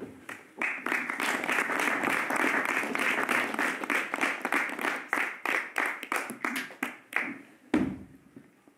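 Audience applauding, thinning out to a few separate claps after about seven seconds, with a single low thump near the end.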